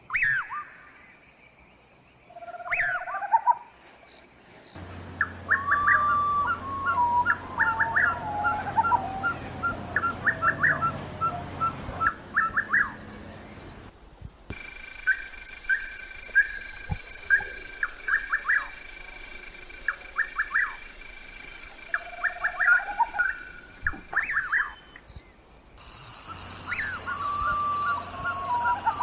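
Wild birds calling: runs of short chirps and whistled notes that slide up and down. A steady high-pitched whine cuts in abruptly about halfway through and again near the end.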